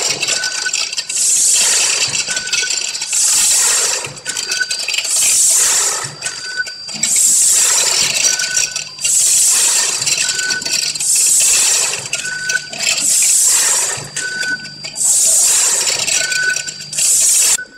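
ZV 320A vertical form-fill-seal packaging machine running in a steady cycle, with dry dog food pouring into each bag as a loud rattling rush about once every two seconds. A brief high note sounds once in each cycle.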